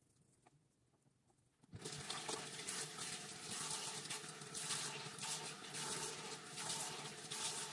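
A bathroom sink tap is turned on about two seconds in, and water runs steadily into the basin with irregular splashing as hands scoop it up to wash the face.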